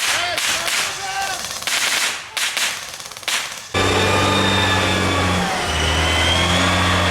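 Airsoft guns firing in rapid bursts, with shouted voices, for the first three and a half seconds or so. Then the sound cuts abruptly to a steady drone of held tones that shifts pitch partway through.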